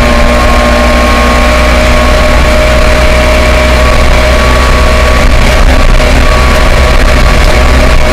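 The 1979 Ford Escort Mk2 rally car's Connaught Warrior 2.4 engine running hard at steady revs in sixth gear, heard loud from inside the cabin.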